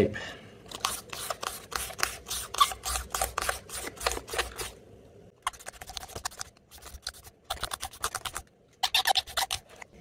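Strip of duct tape pressed onto and peeled off the magnets of an e-bike hub motor's rotor to pick up sanding dust: quick sticky crackles, about five a second, in several runs with short pauses.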